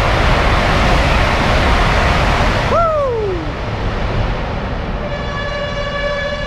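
High-speed train passing through the station at speed: a loud, even rush of noise that cuts off suddenly about three seconds in as it goes by, followed at once by a short tone falling in pitch. Near the end a steady pitched tone with overtones sounds.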